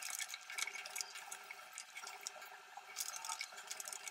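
Spoon stirring thick, simmering phirni (milk and ground rice) in a steel pan: faint wet, sticky clicking and bubbling.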